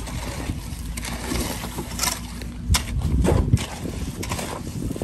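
Hoe scraping and chopping through a concrete mix on the ground, several rough strokes near the middle, over a steady low rumble.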